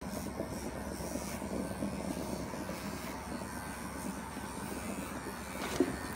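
Electric animal clippers running steadily with a buzzing hum while shearing the wool of a German angora rabbit. A short knock sounds a little before the end.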